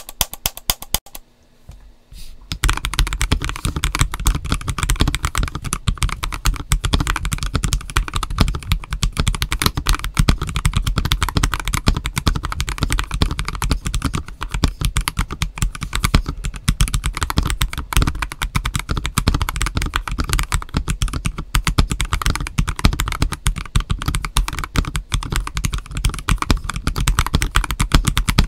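Stock, unmodded GAS67 mechanical keyboard with Akko Starfish switches and Terra PBT dye-sub keycaps being typed on steadily: a fast, continuous run of keystroke clacks. A few separate key clicks come in the first two seconds before the typing settles into a steady stream.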